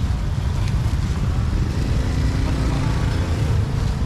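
Street traffic noise: a steady low rumble of motor vehicles, with one engine's hum standing out for a second or so in the middle.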